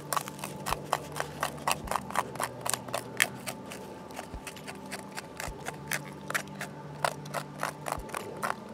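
A sharp-edged piece of flint scraped over silver birch bark in a quick, uneven run of short scraping strokes, several a second, as the bark is worked into tinder.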